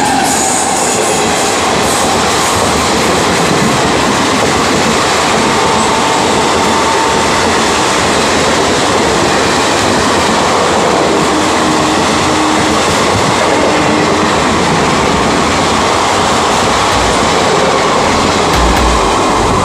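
Express train passing close by at about 90 km/h behind a WAG9H electric locomotive: a loud, steady rush of wheel and rail noise as the locomotive and then the coaches go by.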